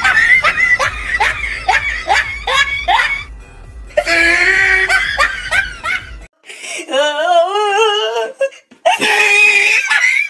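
A person laughing hard in a quick string of high-pitched bursts, with longer held laughs after it. After a cut, a wavering cry rises in pitch, followed by one more short outburst.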